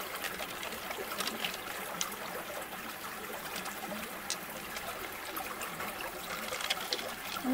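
Water trickling steadily, with faint scattered wet clicks from fingers working through the flesh of an opened pearl mussel as pearls are picked out.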